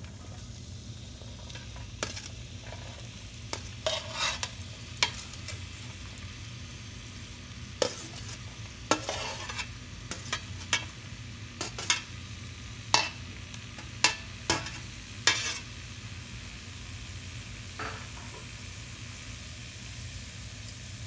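Sliced red onions and curry leaves dropping into hot coconut oil in an enamelled pot and sizzling, with a steady low hum underneath. A metal spoon scrapes the steel bowl out with about fifteen sharp clinks, most of them between about 8 and 15 seconds in.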